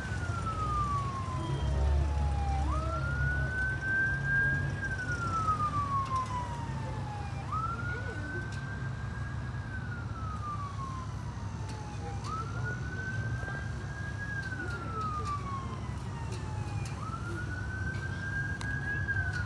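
Fire department emergency vehicle siren wailing, its pitch climbing quickly, holding high, then sliding slowly back down about every five seconds, over a low rumble.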